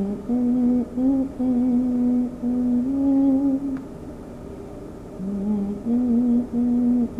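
A person humming a slow melody in long held notes, with short breaks between phrases and a longer pause about four seconds in before the tune starts again.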